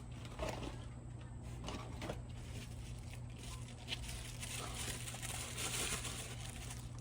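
Faint rustling and a few light clicks of small parts being handled during work on an engine's intake manifold, over a steady low hum.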